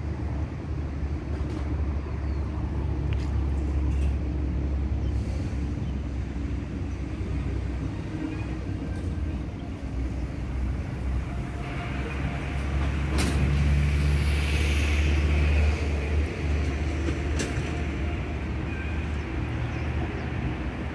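Steady low outdoor rumble under an even background hiss, with a brighter hiss swelling for a few seconds past the middle.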